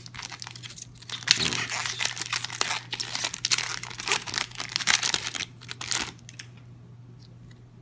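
Foil Magic: The Gathering booster pack wrapper crinkling and crackling as it is torn open and crumpled by hand. It is dense and busy from about a second in, then dies down near the end.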